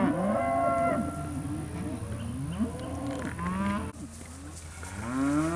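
A group of Angus-cross steers mooing and bawling. Several calls overlap and rise and fall in pitch; they thin out about four seconds in, and a fresh call comes near the end.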